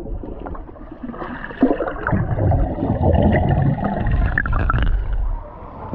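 Muffled bubbling and water churning picked up by a microphone held underwater in a swimming pool as a swimmer plunges in and moves about. It gets louder about a second and a half in and eases off near the end.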